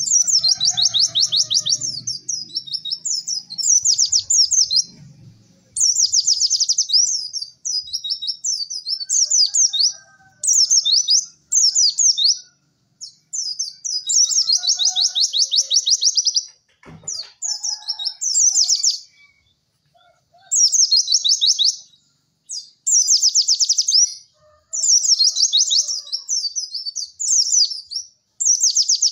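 White-eye (pleci) song: fast, high chirping phrases of a second or two each, repeated with short pauses. One sharp click about midway.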